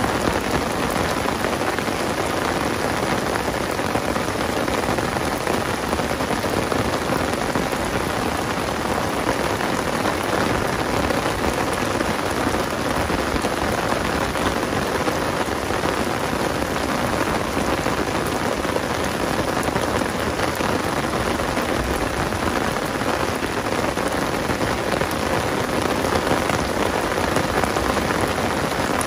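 Heavy rain pouring steadily onto open water and drumming on the fabric umbrella overhead, a dense, even hiss that neither builds nor eases.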